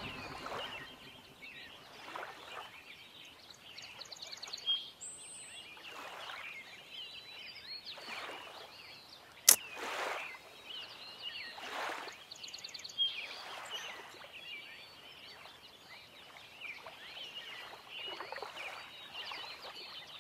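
Outdoor ambience of birds chirping and twittering among trees, with brief swells of rustling noise and one sharp click about nine and a half seconds in.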